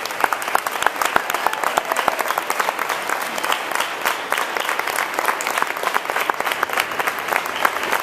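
Congregation applauding, many hands clapping steadily together.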